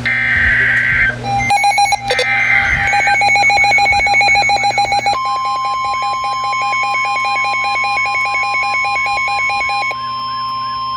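NOAA Weather Radio emergency alert coming in: short screeching SAME digital header bursts, then a fast pulsing electronic alarm beep. About five seconds in, the steady 1050 Hz weather-radio warning tone starts and holds; it signals the tornado warning that follows.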